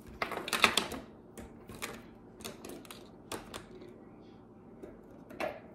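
Plastic fidget toys and a metal keyring being set down on a paper-covered wooden table: a quick flurry of clacks and rattles just under a second in, then single knocks every half second or so, and one more near the end.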